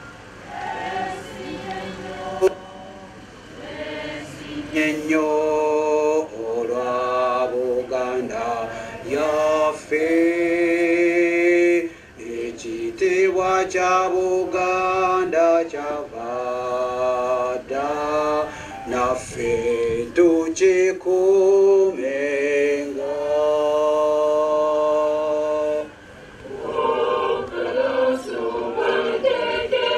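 A group of men and women singing together unaccompanied, in long held notes, with brief pauses between phrases.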